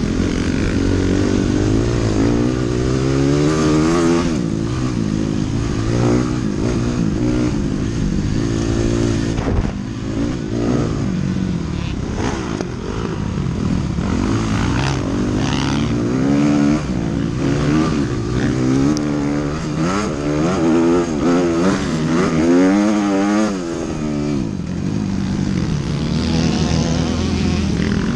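Dirt bike engine, heard from on the bike while racing, revving up and dropping back again and again as it accelerates out of turns and shifts.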